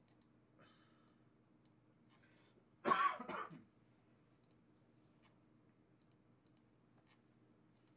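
A person coughs once, about three seconds in. Faint computer-mouse clicks come every second or so.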